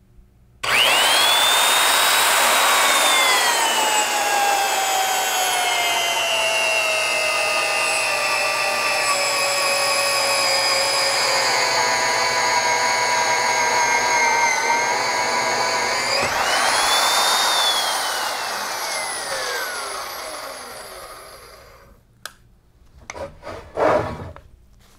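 Hougen magnetic drill's motor starting up with a quickly rising whine, then driving an annular cutter through steel plate to enlarge an undersized hole, its pitch sinking slowly as it cuts. About 16 s in, the pitch rises again as the load comes off. The motor is then switched off and winds down with a falling whine, followed by a few light knocks.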